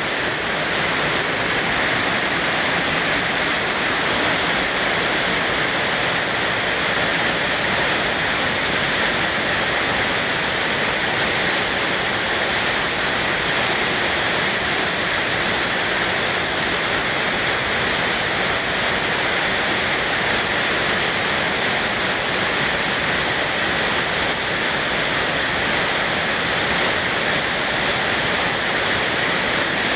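Rain falling steadily, a dense even hiss with no breaks.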